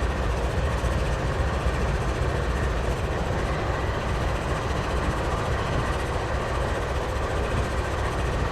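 Norfolk Southern diesel locomotive No. 4077, a DC-to-AC conversion unit, idling steadily with its train stopped: an even, low diesel rumble.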